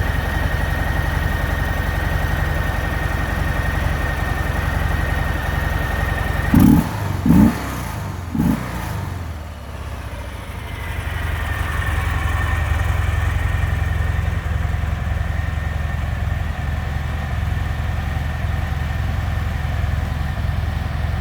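Harley-Davidson Softail Sport Glide's Milwaukee-Eight 107 V-twin idling, blipped three times in quick succession a few seconds in, then settling back to a steady idle.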